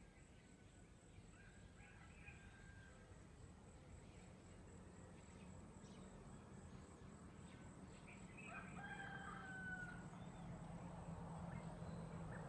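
Rooster crowing faintly, twice: a weak crow about a second and a half in and a clearer one about eight and a half seconds in, over a steady low hum.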